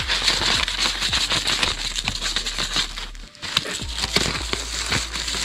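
Crinkling rustle with many small clicks as an engine cover gasket is handled and laid out, dipping briefly about three seconds in.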